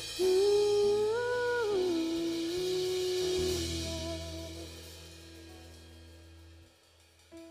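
Live worship band music: a held, wordless melody line steps up and back down over a low sustained bass, then fades away as the song ends. It is almost silent briefly before new notes come in near the end.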